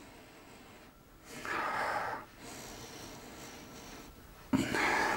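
A man sniffing twice through his nose, each a long, hissy inhale of about a second, smelling a bottle held under his nose.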